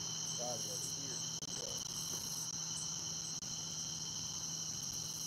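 Steady chorus of crickets and other night insects trilling, several high pitches held at once and unbroken throughout.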